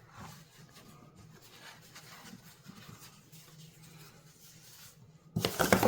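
Faint rustling and rubbing from rocks and packing being handled, then a sudden louder burst of crinkling and clicks near the end.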